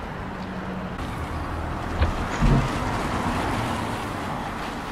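Car striking a cyclist at a crossing, heard over steady street traffic noise: a sharp knock about two seconds in, then a heavier low thud half a second later as the bicycle and rider go down.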